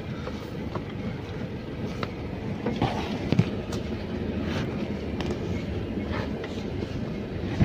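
A car driving slowly over a rough, rutted dirt road, heard from inside the cabin: a steady rumble of tyres and engine with irregular knocks and rattles as the car takes the bumps.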